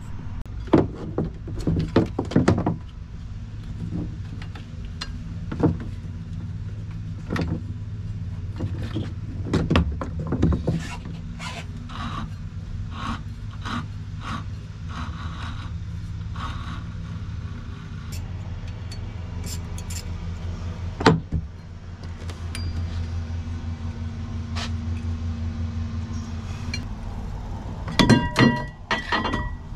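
Wrench and socket work on a Crusader 6.0 inboard engine's water pump, taking off the belt, pulley and pump: scattered sharp metallic clinks and knocks over a steady low hum. Near the end comes a quick cluster of loud, ringing metal clanks.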